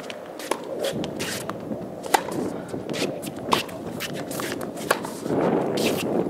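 Tennis balls struck by racquets and bouncing on a hard court during a rally, sharp pops about every second and a half, with shoes scuffing on the court between shots.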